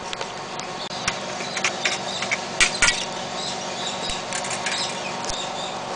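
Scattered light clicks and scrapes of a sheet-metal shield and its foil tape being handled as the shield is lifted off an LCD monitor's circuit board, over a steady background hum.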